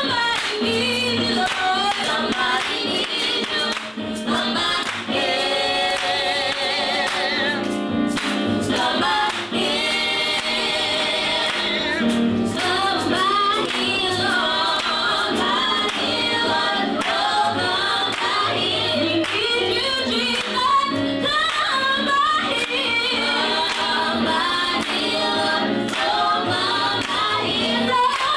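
Three women singing a gospel song together into handheld microphones, sustained notes wavering in pitch.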